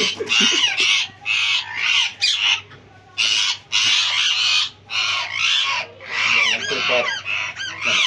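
Green ringneck parrot screeching in a string of harsh calls while it is held wrapped in a cloth and pushed into a cage, with shorter rising-and-falling calls near the end.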